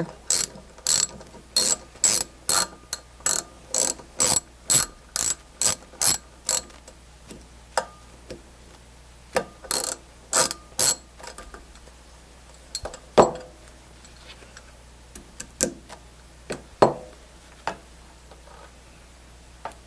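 Socket ratchet wrench clicking as it turns counterclockwise to unscrew the sight glass retainer on a refrigerant charging manifold: an even run of clicks about three a second for roughly the first six seconds. After that come a dozen or so scattered clicks and knocks of small metal parts being handled.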